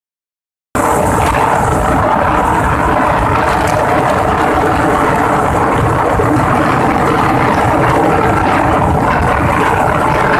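Suzuki GS 150's single-cylinder four-stroke engine running steadily at high revs at full throttle, near the bike's top speed, with wind rushing over the microphone. It starts after a moment of silence.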